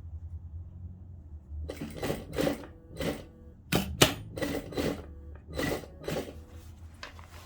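Handling sounds from sewing work. A low hum runs for the first couple of seconds, then comes a string of about a dozen short rustling strokes, roughly two a second, with one sharp click about four seconds in.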